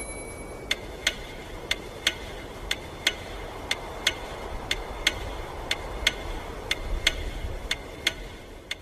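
A steady tick-tock: a pair of sharp, slightly ringing clicks about once a second, over a low rumble.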